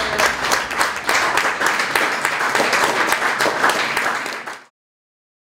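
A group of people applauding, with many overlapping claps, cutting off abruptly about four and a half seconds in.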